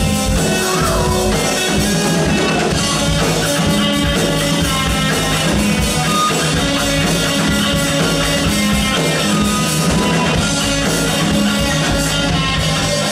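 Live rock trio playing: distorted electric guitar, electric bass and a drum kit, a steady wall of sound.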